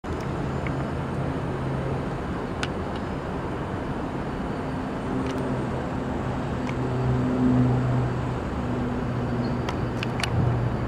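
Low, steady drone of an approaching Trinity Railway Express diesel commuter train, still at a distance, over outdoor background noise, swelling slightly a little past the middle, with a few sharp clicks.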